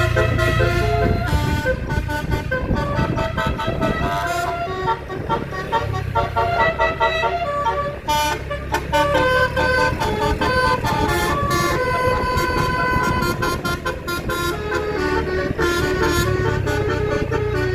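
Bus 'telolet' horn, a multi-trumpet musical air horn, playing a melody of quickly changing notes over the low rumble of the bus engine.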